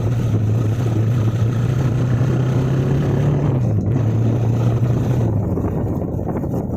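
Motor vehicle engine running while driving an off-road track. Its pitch rises slightly about three seconds in, then drops twice as the engine eases off.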